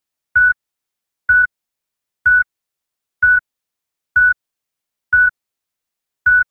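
Electronic intro beat: a short synthesized beep with a low thud under it, repeating evenly about once a second, seven times, with silence between.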